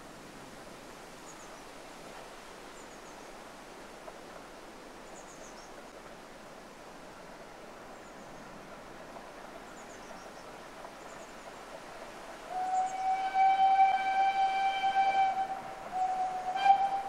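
Narrow-gauge steam locomotive whistle: one long steady blast of about three seconds, then a short blast near the end. Before the whistle there is only a quiet background with faint bird chirps.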